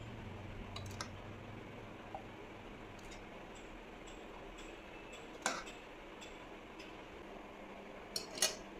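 Scattered light clicks and taps of kitchen utensils and a bottle being handled while homemade cow ghee is filled into the bottle, over a faint steady hiss. The strongest tap comes about five and a half seconds in, and a quick cluster of clicks comes near the end.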